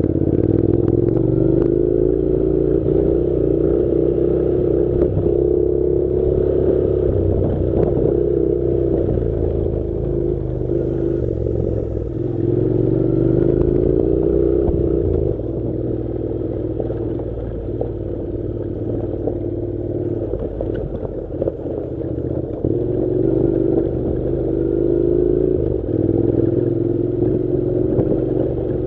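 Honda NC700's 670 cc parallel-twin engine running steadily under load on a rough gravel track, its pitch rising and falling every few seconds with the throttle. Occasional knocks and clatter come from the bike over the stony surface.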